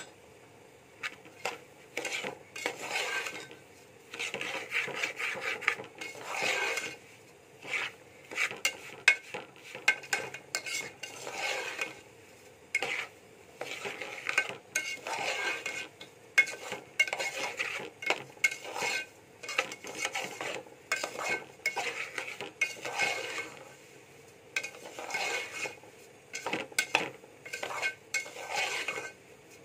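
Metal spoon stirring and scraping semolina as it roasts in a steel pan, in irregular strokes with light clicks of metal on metal. The semolina is kept moving so it turns golden without sticking or burning on the bottom.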